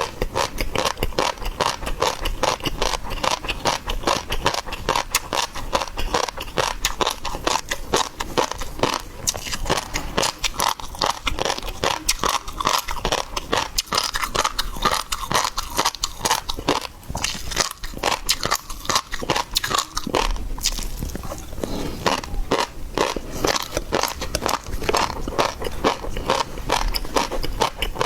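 Close-miked eating of seafood: continuous chewing and biting with dense wet crackles and clicks.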